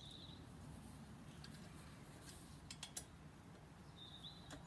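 Near silence with faint bird chirps near the start and end, and a few light clicks about three seconds in.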